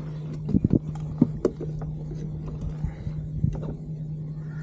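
Spinning reel being cranked while a hooked fish is reeled in, with scattered sharp clicks and knocks, most of them in the first two seconds, over a steady low hum.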